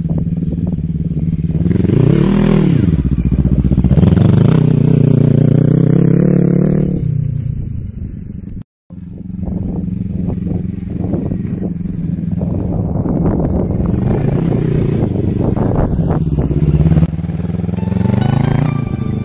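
Quad bike (ATV) engine running and being revved: the pitch swells up and back about two seconds in, climbs again and holds for a few seconds, then falls away. After a short break it runs steadily, with some clatter and a brief rev near the end.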